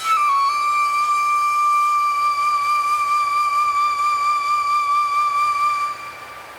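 Ambient music: a flute plays one long held note that slides slightly down as it begins, wavers gently, and fades out near the end. A soft wind-like hiss lies underneath.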